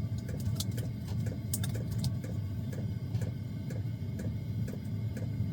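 Small diesel air heater running: a steady low hum from its blower with its fuel pump ticking regularly, about three ticks a second.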